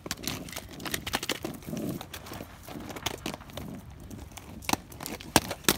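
Quad roller skates on a concrete sidewalk: irregular clicks and clatter from the plastic wheels and boots, with no steady rhythm.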